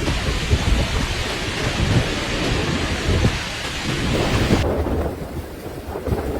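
Heavy rain hissing over a low, uneven storm rumble. About three-quarters of the way through, the rain hiss cuts off suddenly and only the low rumble remains.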